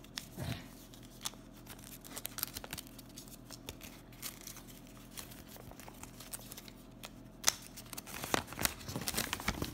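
Folded glossy paper pamphlet being unfolded and handled: paper rustling and crinkling in scattered small crackles, busier and louder near the end.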